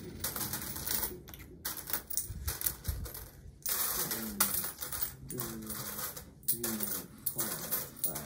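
Loose coins being slid, picked through and dropped by hand on a tabletop, a continuous run of metallic clinking and clatter.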